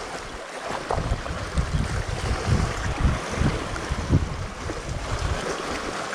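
Wind buffeting the microphone in uneven gusts over a steady wash of sea waves.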